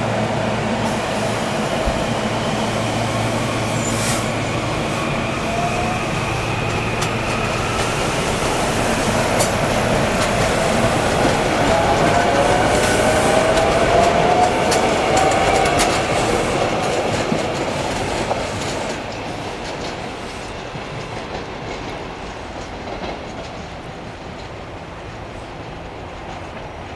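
SEPTA Silverliner V electric multiple-unit train pulling out and accelerating: a whine rising in pitch as it picks up speed, with wheels clicking over the rail joints. It is loudest about halfway through, then fades as the train draws away.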